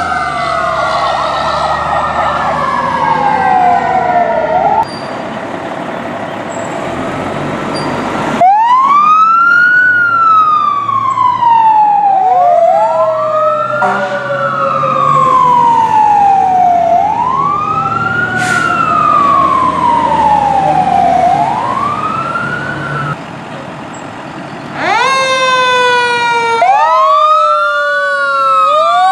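Emergency vehicle sirens wailing over the rumble of truck engines, the pitch rising quickly and falling more slowly about every three and a half seconds, often with two sirens overlapping. The sound changes abruptly several times as one vehicle's siren gives way to another's.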